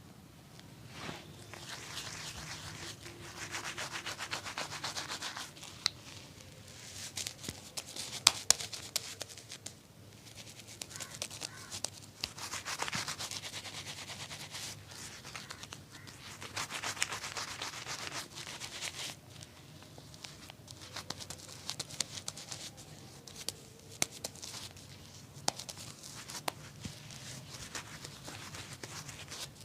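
Rubbing on skin and hair in strokes of a few seconds each, with sharp taps scattered between them.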